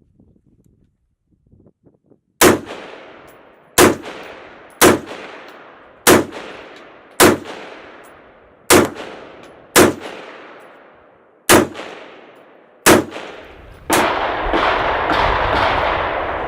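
Rifle firing nine single shots at an uneven pace of about one every second or second and a half, each crack trailing off in a fading echo. Near the end the shots stop and a steady rushing noise takes over.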